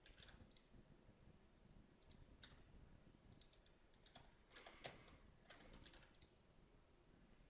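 Near silence with a few faint, scattered clicks of a computer mouse and keyboard.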